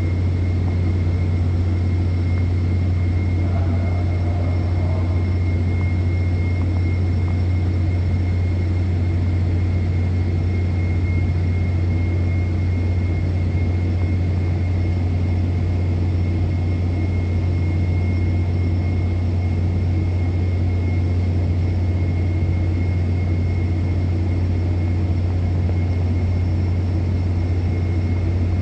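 Steady low machinery drone with a constant deep hum over a rumble, and a faint steady high-pitched whine above it, unchanging throughout.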